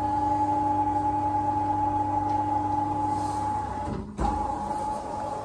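Two-post car lift's electric hydraulic pump motor running with a steady whine and hum, raising the car. About four seconds in it stops briefly with a low thud, then runs again.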